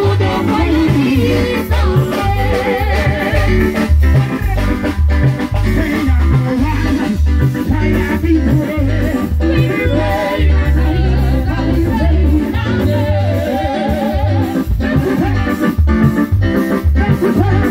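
Live band music through a loud sound system: a woman singing into a microphone over a Yamaha keyboard, electric guitar and a pulsing bass beat.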